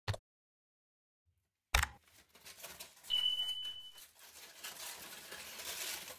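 Aluminium foil crinkling and rustling as it is handled and unwrapped, starting suddenly a little under two seconds in. A steady high beep about a second long sounds partway through, and a short click comes at the very start.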